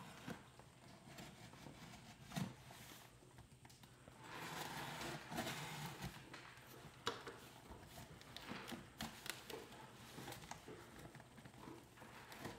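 Packing tape being picked at and peeled off a cardboard shipping box: faint scratching and scraping with scattered small clicks and taps, and a longer rasping stretch in the middle.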